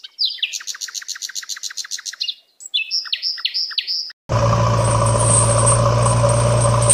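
Bird chirping in a quick, even trill, then a short group of about five chirps. About four seconds in, a vehicle engine sound starts abruptly and runs steadily at one pitch.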